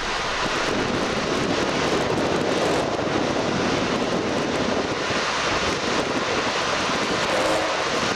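Steady, loud rushing noise of wind on an outdoor microphone at the rocket launch pad, with the rocket not yet ignited.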